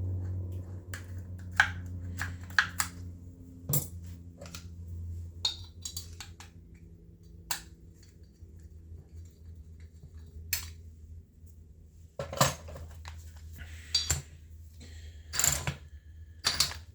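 Tools and small metal chainsaw parts clinking and knocking on a workbench during a teardown: a scatter of sharp clicks and clanks, busier near the end, over a steady low hum.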